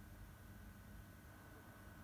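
Near silence: faint room tone with a low hum and a thin, steady high tone.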